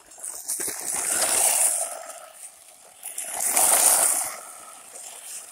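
1/16 Cheerwing short course RC truck drifting, its tyres skidding across the ground in two swells of hiss, each lasting a second or two. The second swell comes about three seconds in.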